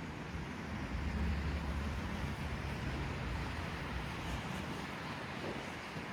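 Outdoor city ambience: a steady low rumble with a hiss over it, strongest about a second in and easing off toward the end.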